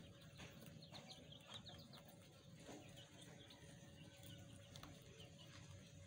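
Faint poultry-yard ambience: quiet, short bird chirps come in small runs, with a few soft ticks and a steady faint hum underneath.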